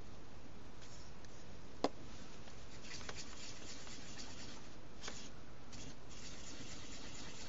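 Small handling sounds from hands working at an Olympus M-1 camera's top plate: light scratching and rubbing, with one sharp click about two seconds in and a couple of fainter ticks later, over a steady hiss.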